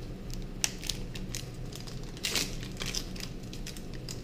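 Foil Pokémon booster pack wrappers crinkling as packs are handled and opened: a run of irregular crackles, with the loudest rustle about two seconds in.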